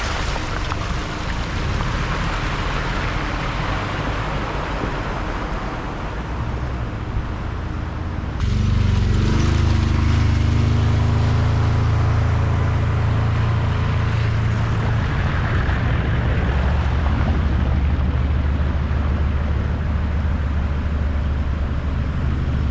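Off-road vehicle driving along a track: engine and tyre noise, changing abruptly about eight seconds in to a louder, steady low engine drone.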